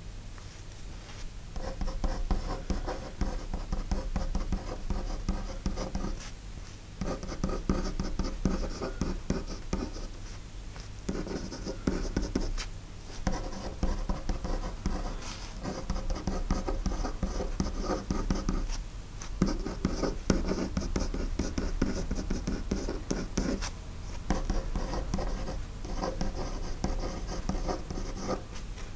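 Handwriting on paper: the writing tip scratches across the sheet in stretches of a few seconds, with short pauses between them.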